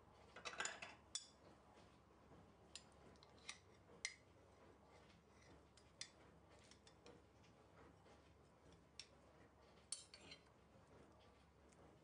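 Quiet clinks and scrapes of a metal cake server against a metal baking tray and a glass plate as baklava pieces are lifted and served, with a short crackling scrape near the start and single sharp clicks scattered after it.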